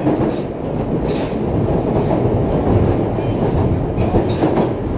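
Osaka Metro 30000 series subway train running at speed underground: a steady rumble of wheels on rail with a few clacks over rail joints.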